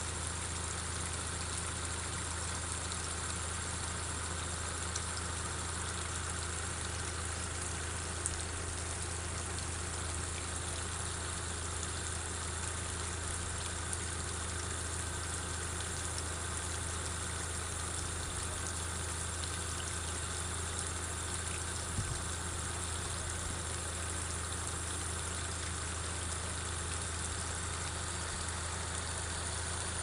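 Flowing water: a steady rushing with a low rumble underneath, unchanging throughout, with a few faint clicks.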